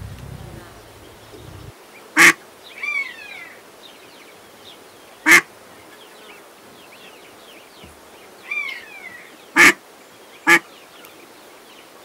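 Mallard duck quacking: four short, loud quacks spread through the clip, the last two close together. Small birds chirp faintly between them.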